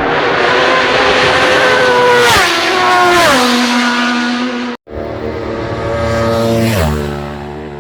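Supersport race motorcycle passing at full speed, its engine note dropping sharply in pitch as it goes by about two and a half to three and a half seconds in. After an abrupt cut, a second bike passes, its note falling near the end and fading away.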